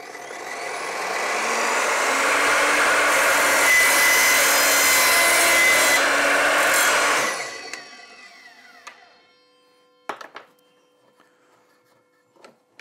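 Evolution R255SMS sliding mitre saw's motor spinning up, its blade cutting through a plastic pipe with a thin whistle partway through, then switched off and running down with a falling whine. A few short knocks follow near the end.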